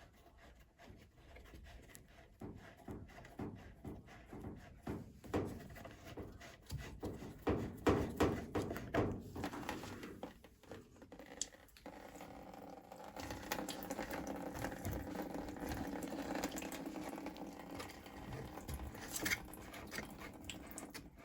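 Irregular clicks and knocks of the washer's water supply hoses being unscrewed and handled, then, from a little past halfway, a steady stream of residual water draining from the disconnected hoses into a bucket.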